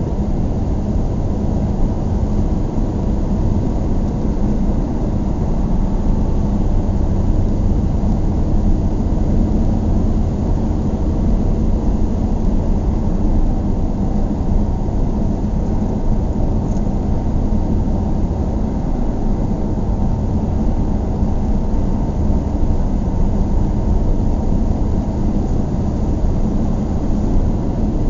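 Steady low rumble of a vehicle on the move, even throughout, with a faint steady hum over it.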